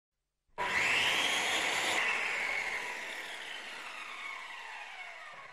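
Intro sound effect for an animated spinning logo: a synthetic whir that starts suddenly about half a second in, then slowly fades while several tones slide downward in pitch.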